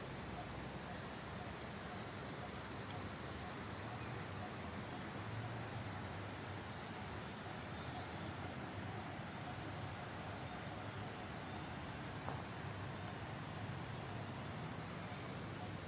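Tropical insects making a steady, unbroken high drone. Faint short high chirps repeat every second or two over a low background hum.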